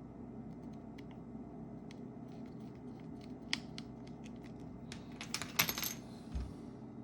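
Small metal tools and phone parts clicking and tapping on a work surface: scattered light ticks, then a quick cluster of clicks about five and a half seconds in and a soft low thump, over a steady low hum.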